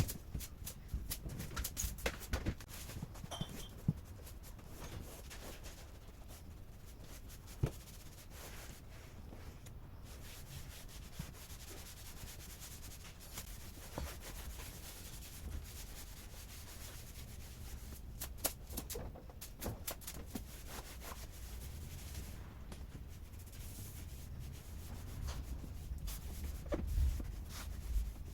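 Hand rubbing and scrubbing, with scattered light clicks and knocks throughout.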